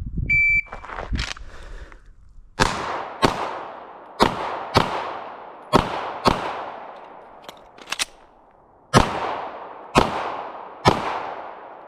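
Shot timer beeps once, then gunfire: three quick pairs of shots, a short pause with a couple of quieter metallic clicks, then three more shots about a second apart, each shot echoing as it dies away.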